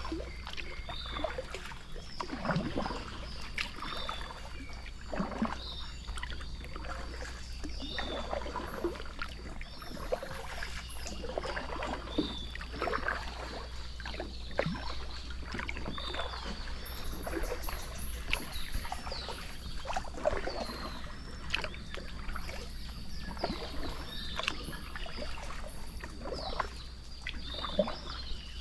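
Irregular splashing and knocking of water, as from a small boat or paddling, over a steady thin high-pitched buzz and repeated short falling chirps.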